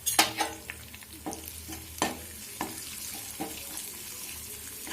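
Herb leaves sizzling in hot coconut oil in a pan, with a metal spoon clinking against the pan about five times as they are stirred, the first clink the loudest.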